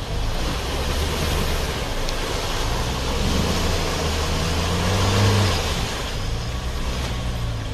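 Mahindra Thar's engine running under load as the 4x4 crawls through deep mud. It rises a little in pitch and level from about three seconds in and eases back a little past the middle, over a steady hiss.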